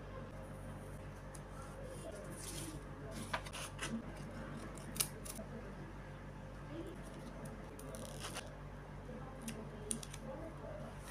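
Washi tape and paper being handled on a journal page: scattered crisp rustles, crackles and small clicks, with a few short tearing sounds, over a steady low hum.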